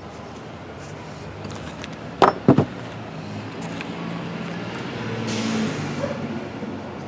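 Three sharp knocks in quick succession about two seconds in, over the hum of a car passing that swells and fades in the second half.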